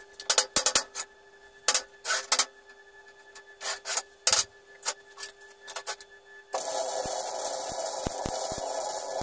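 Steel parts being handled and clamped on a steel welding table: short scrapes and knocks of metal on metal. About six and a half seconds in, a MIG welder strikes its arc and runs with a steady crackle.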